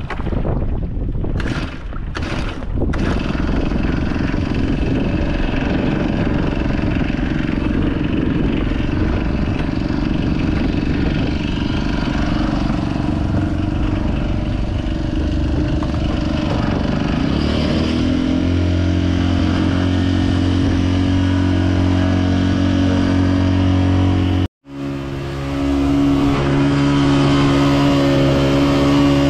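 Small boat's outboard motor running under way over a rushing noise. About two-thirds of the way in, its note rises and settles into a steady hum. Near the end the sound drops out for an instant, and the engine then runs on at a higher, steady pitch.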